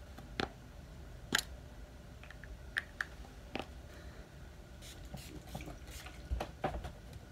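Small clicks and knocks of toiletries being handled, a lip balm tin and a body-mist spray bottle, with a few short hissing spritzes from the spray bottle about five seconds in.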